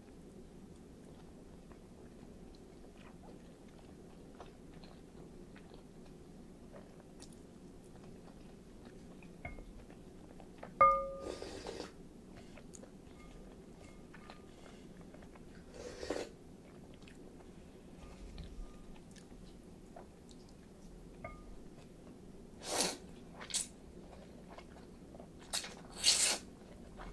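Close-up eating sounds of chilled ramen: soft chewing, one sharp knock of a utensil on the ceramic bowl with a short ring about eleven seconds in, then several short slurps of noodles near the end.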